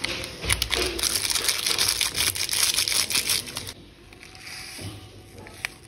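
Plastic sachet of powdered milk crinkling and crackling as it is squeezed and shaken out over a pan. About four seconds in, the sound drops suddenly to a faint hiss.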